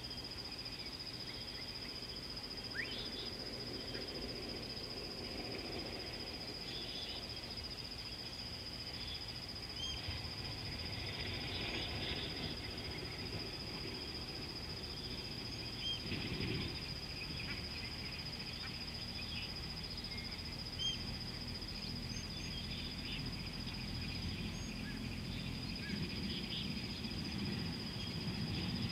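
Outdoor wildlife ambience: scattered short bird chirps over a steady high-pitched whine and a low, even background rumble.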